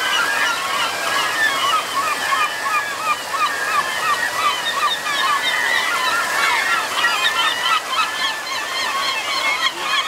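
A large flock of gulls calling over one another, a dense, unbroken chorus of short, repeated calls, over the rush of water through a rocky stream.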